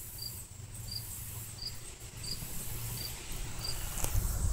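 A cricket chirping at an even pace: a short high chirp about every two-thirds of a second, over a low rumble.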